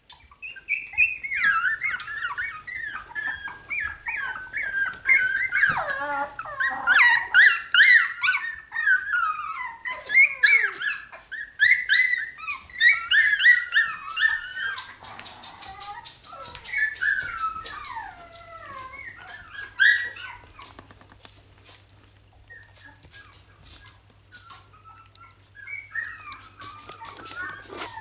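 Young Finnish Lapphund puppies crying: a string of short, high, sliding squeals and whines, one after another, busiest in the first half and thinning out after about twenty seconds.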